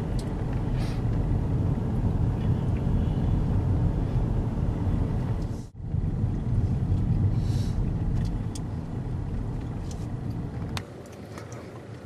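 A car driving along a road, heard from inside the cabin: a steady low rumble of engine and road noise. It drops out briefly about halfway through, and near the end gives way to quieter outdoor ambience.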